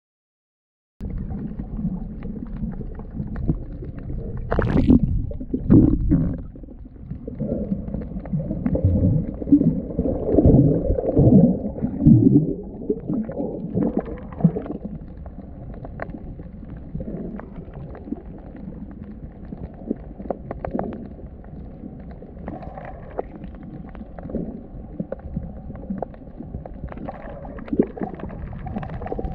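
Muffled underwater rumble and gurgling of water moving against a submerged camera, starting abruptly about a second in. Louder swirling, sweeping surges come between about four and twelve seconds, then it settles to a steadier low rumble.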